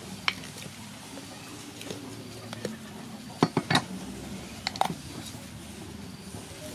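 Meat cleaver knocking sharply on a wooden chopping block as a whole raw chicken is cut apart: a single knock at the start, then two quick pairs of knocks a little past the middle.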